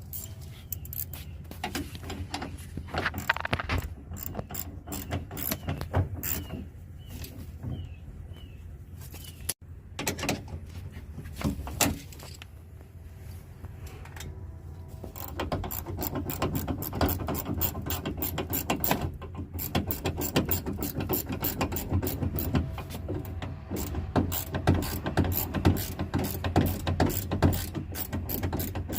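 Hand ratchet working a fastener on a truck door: scattered clicks and knocks at first, then rapid, steady ratchet clicking from about halfway through.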